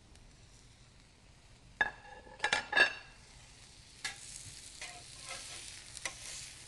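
A few sharp, ringing clinks of a metal utensil about two seconds in, then striped bass fillets sizzling on a hot stovetop grill pan as a utensil works at them, with a couple more clicks.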